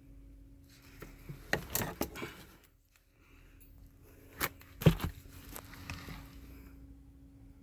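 Irregular clicks, knocks and scraping, like handling or movement noise, with the loudest knock about five seconds in, over a faint steady hum.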